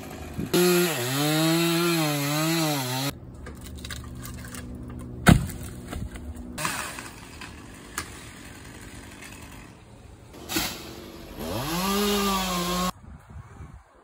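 Chainsaw running at high revs and cutting cottonwood limbs, its pitch wavering up and down under load, in two stretches of a few seconds. In between comes one sharp, loud thud about five seconds in, with a few lighter knocks after it.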